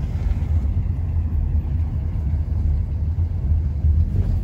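Car driving, heard from inside the cabin: a steady low rumble of engine and tyres.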